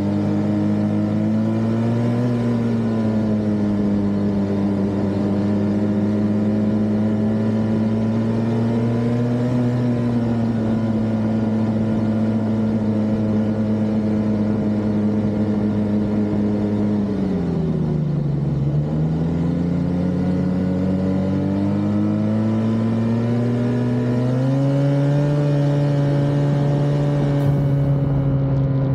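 Snowmobile engine running steadily at trail speed. Its pitch eases down just past the middle as the throttle is let off, then climbs back up as the rider accelerates again.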